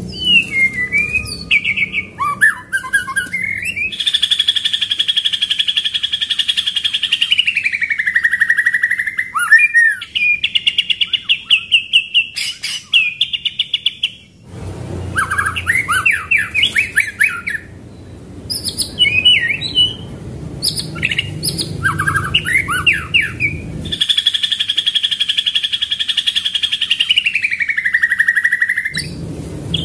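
White-rumped shama (murai batu) singing a loud, varied song: long trilled notes that slide down in pitch, a fast rolling string of repeated notes (the 'tembakan ngeroll' that keepers train for), and short chirped phrases between. The long sliding trill comes twice, about four seconds in and again near the end.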